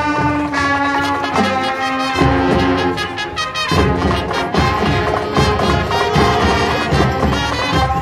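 High school marching band playing: the brass holds sustained chords, and about halfway through the drum and percussion hits grow denser and drive a rhythmic passage under the horns.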